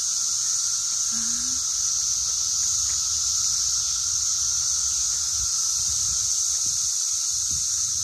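Dense chorus of periodical cicadas: a loud, steady, high-pitched drone with a fainter lower steady tone beneath it.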